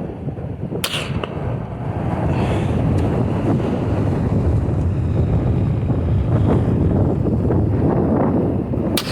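Wind buffeting the microphone, a steady low rumble outdoors, with a sharp crack about a second in and another near the end.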